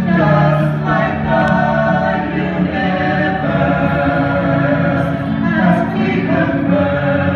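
A group of voices singing together in chorus, holding long notes that change every second or two.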